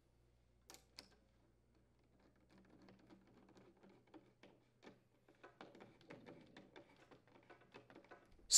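Faint, irregular small clicks and ticks of a flathead screwdriver turning the metal screw clamp that holds a leaf blower's flexible tube on its elbow tube, tightening the clamp.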